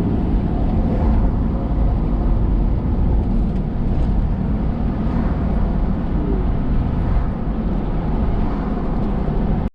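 Steady road and engine rumble inside a moving vehicle's cabin, cutting off suddenly near the end.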